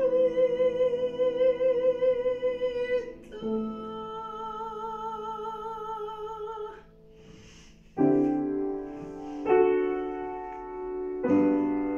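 Soprano singing two long held notes with vibrato over soft piano accompaniment. After a short pause the piano plays three chords on its own.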